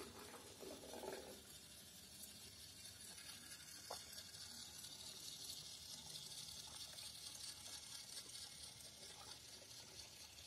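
Faint whirr of a battery-powered toy locomotive's small motor, with its wheels rolling along wooden track, growing louder after a few seconds as the train comes nearer.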